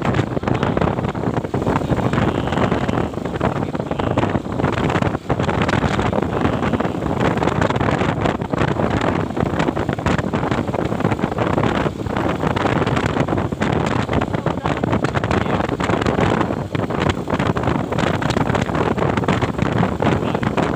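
Steady wind noise buffeting the microphone of a moving motorcycle, a dense rushing sound that goes on without a break.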